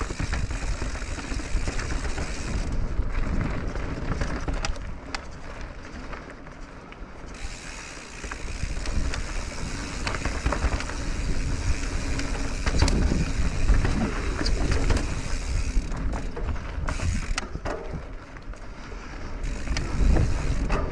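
Radon Swoop enduro mountain bike rolling down a dirt singletrack: tyre noise on the dirt with the bike rattling and knocking over bumps, under a steady low rumble.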